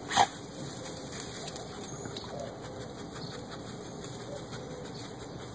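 A dog rummaging through fern fronds, the leaves rustling and crackling as it sniffs about. A single short, loud sound comes just at the start.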